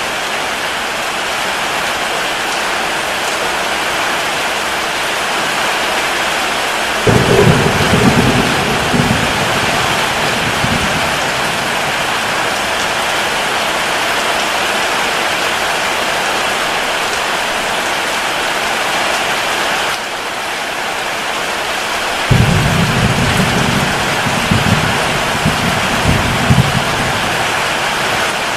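Steady heavy rain, with thunder rumbling in twice: a roll starting about seven seconds in that lasts about four seconds, and another about twenty-two seconds in that lasts about five seconds.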